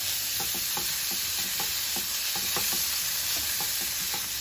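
Diced pork, Chinese bacon and Chinese sausage sizzling steadily in their rendered fat in a nonstick skillet, with a wooden spatula scraping and tapping the pan in short irregular strokes as it stirs.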